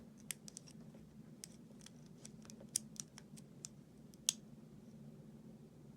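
Irregular small metallic clicks and ticks of a hook pick working the pin tumblers of an American 1100 padlock under light tension, with two louder clicks near the middle. A steady low hum runs underneath.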